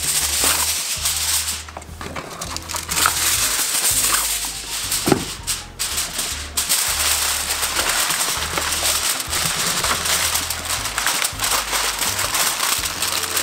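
Heavy-duty aluminium foil crinkling as it is pulled off the roll and crimped by hand over a disposable aluminium pan, with background music underneath.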